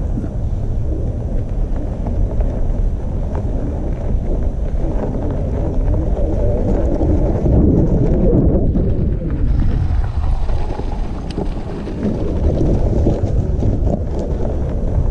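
Heavy wind buffeting on the microphone while riding an electric bike: a steady low rumble throughout.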